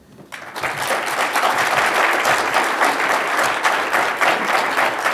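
Audience applauding, many hands clapping, starting a moment in and holding steady.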